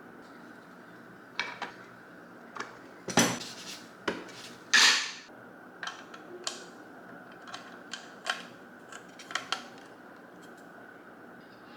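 Metal tools and parts clinking and knocking, a dozen or so separate sharp strikes at uneven intervals, with a short rushing burst about five seconds in.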